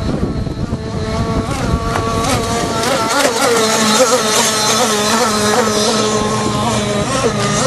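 Zenoah two-stroke gas engine of an RC speedboat, fitted with a Trevor Simpson reed-valve bottom end and stock Zenoah top end on its first run, running flat out on the water. Its pitch wavers up and down, and it grows louder over the first few seconds as the boat comes past close by.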